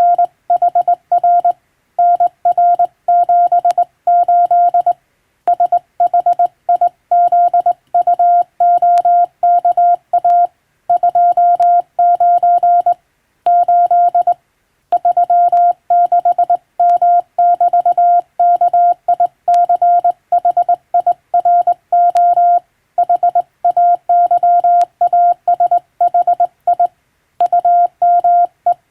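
Morse code (CW) sent on a telegraph key and heard as a single steady beep tone, keyed on and off in short dots and longer dashes, with brief gaps between characters and words. It is international (English) Morse sending practice.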